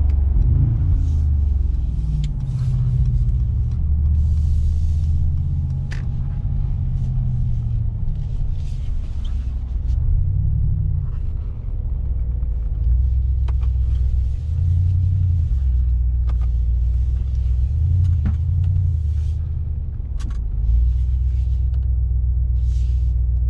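Mercedes-AMG G63's 4.0-litre twin-turbo V8 running at low revs with a deep rumble, its pitch rising and falling as it is driven, with a few sharp clicks.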